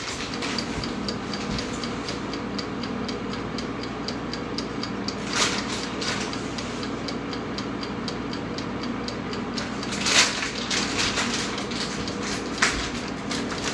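Steady mechanical hum with a fast, even ticking, broken by two short louder clatters about five and ten seconds in.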